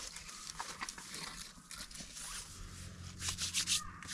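A series of short scratchy rasps and rustles, the loudest cluster about three and a half seconds in.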